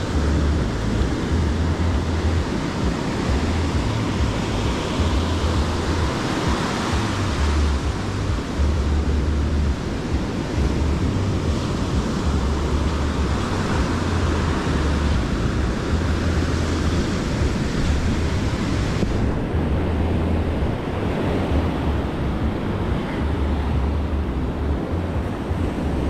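Surf breaking and washing up a sandy beach in slow, repeating swells, with wind buffeting the microphone in gusts.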